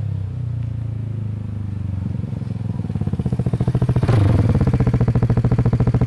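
Vespa GTS scooter's single-cylinder four-stroke engine through a VRX exhaust with the DB killer (baffle) removed, running as the scooter rides up. The exhaust note grows louder throughout, with a distinct pulsing beat from about halfway in.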